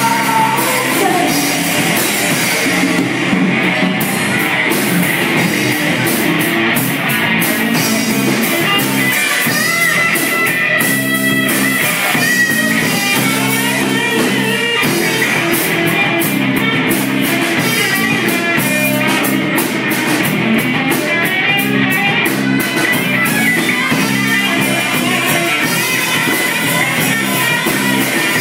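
Live rock band playing: electric lead guitar over bass guitar and a drum kit.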